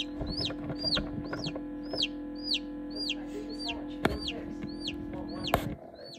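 Newly hatched chicken chick peeping repeatedly, about two peeps a second, each a short high note falling in pitch, over a steady hum.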